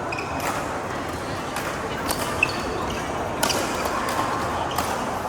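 Badminton rally: rackets striking the shuttlecock in several sharp cracks about half a second to a second apart, mostly in the second half, with brief shoe squeaks on the court over a steady background of faint voices.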